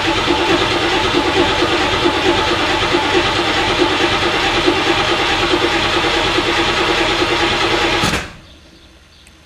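Starter motor cranking a Pontiac Trans Am's V8 with no gas given, so the engine turns over without firing, to get oil circulating after months of storage. The cranking is steady and stops abruptly about eight seconds in.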